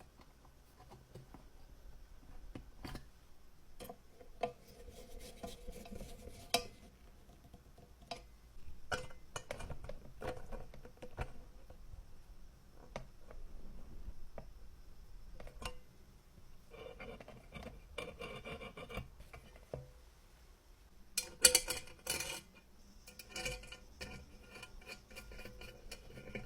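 Small metal parts being handled and worked: scattered clicks and clinks, with stretches of scraping or rubbing, and a louder clatter late on.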